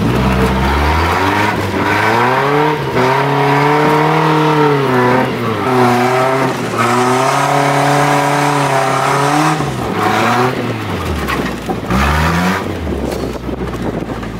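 Car engine revving up and easing off while being driven, its pitch climbing slowly and then dropping several times, heard from inside the cab.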